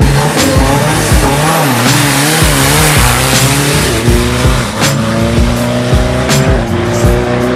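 Drag-racing diesel pickup truck revving, then launching with tyre squeal and accelerating hard, its engine pitch climbing and dropping back at gear changes twice.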